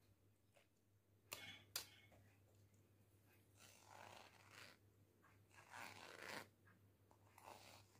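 Faint scraping of a utensil working freshly churned butter against a steel mesh strainer, in several short strokes, with two sharp clicks a little over a second in.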